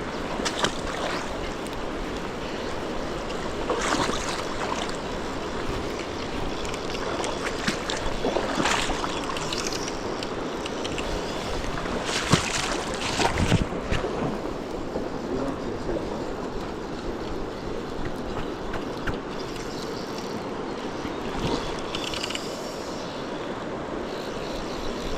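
Fast-flowing river water rushing over rocks, a steady noise with a few brief louder bursts, the strongest about twelve to thirteen seconds in.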